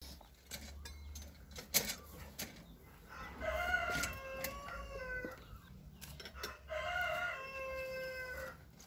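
A rooster crowing twice, each crow about two seconds long and falling in pitch toward its end. A few sharp knocks come before the first crow.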